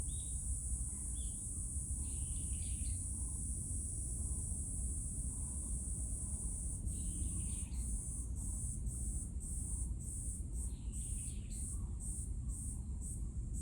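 Insects calling in a steady high-pitched drone that breaks into even pulses, about two a second, from about halfway on. Short bird chirps come now and then over a low outdoor rumble.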